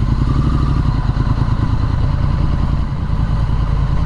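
Triumph Street Scrambler's 900cc parallel-twin engine running steadily at low, even revs under way, with a brief dip about three seconds in.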